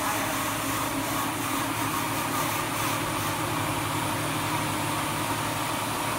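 Jonsen Sander SD300-WJS+3D wet deburring machine running steadily, its planetary disk brush heads spinning and the conveyor carrying parts through: an even mechanical hum with several held tones and a hiss over it.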